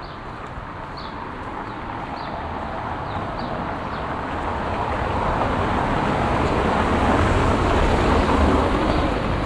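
A motor vehicle passing close by: its engine and tyre noise swell steadily for about eight seconds, peak near the end, then begin to fade. In the first few seconds a bird gives short chirps about once a second.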